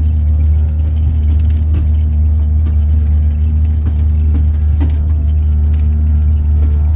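Steady low rumble of an ice-fishing shack being towed over the ice by an ATV, with the towing engine's drone and the shack rattling and knocking as it bumps along.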